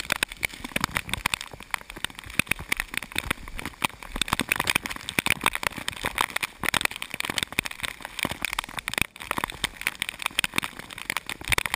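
Heavy rain striking the hikers and the camera: a dense, irregular pattering of drops over the steady rush of muddy floodwater in a narrow sandstone canyon.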